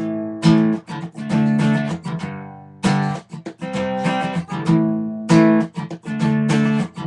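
Acoustic guitar strummed in a rhythmic song intro: ringing chords broken up by short muted strokes, with the phrase repeating about every two and a half seconds.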